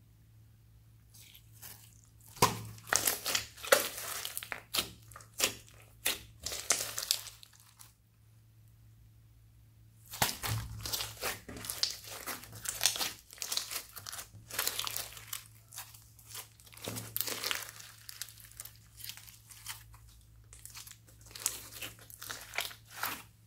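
Glittery slime mixed with foam beads being stretched, squeezed and kneaded by hand, giving rapid crackling and popping in dense runs, from about two seconds in to about seven and again after a short pause about ten seconds in.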